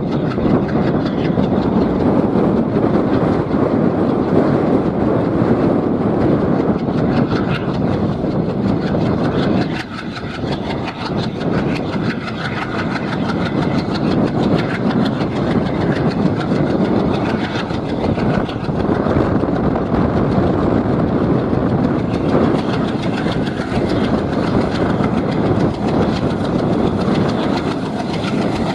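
Train running along the track: a steady, loud rumble with wheels clattering on the rails, easing slightly about ten seconds in.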